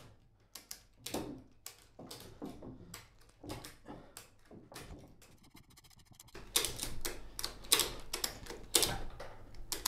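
Small hand winch ratcheting in irregular clicks as it hoists a 120 kg milling-machine saddle. Around five seconds in comes a short run of fast, even clicks; from about six seconds the clicks grow louder and closer together over a low hum.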